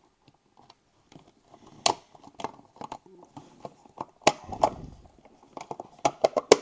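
Black plastic case of a Metabo HPT battery charger knocking, clicking and creaking as the two halves are pressed together by hand. Sharp knocks come about two seconds in and about four seconds in, with a run of quick clicks near the end, while the cover does not yet seat fully.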